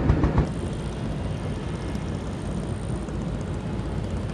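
Vehicle noise: a rapid, regular thudding that stops about half a second in, followed by a steady rumble and hiss with a faint high whine.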